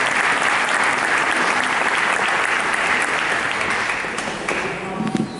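Audience applauding, a dense patter of hand claps that thins out and fades away over the last second or so.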